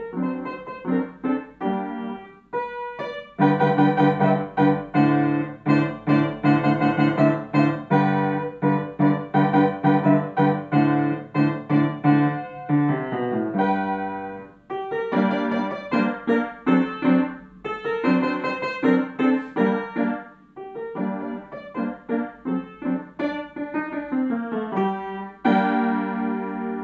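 Solo upright piano playing a classical student piece: a steady stream of notes, loudest in the first half, easing off briefly about halfway through and then going on more softly. Near the end a chord is held and rings on.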